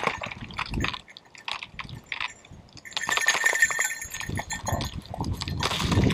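Wading through shallow, partly frozen marsh water: thin ice crackling and clinking underfoot in a run of small sharp clicks, with heavier sloshing of water from about two-thirds of the way in.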